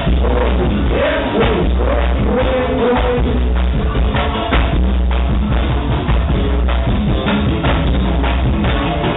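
Live band music played loud through a PA: drums and percussion over a heavy bass, with a wavering melody line in the first few seconds.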